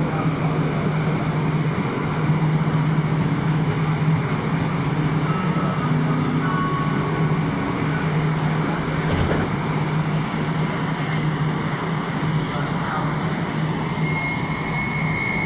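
Rubber-tyred Montreal metro train standing at a platform, its equipment giving a steady low hum; near the end it starts to pull away and a high traction-motor whine comes in.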